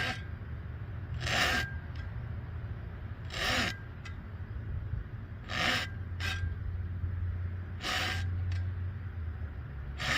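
Handsaw cutting through a fuel line in slow, deliberate strokes: a short rasp roughly every two seconds, about five in all, over a steady low hum.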